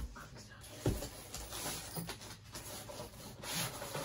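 Handling noises of comic books being picked up and moved, with a soft thump about a second in.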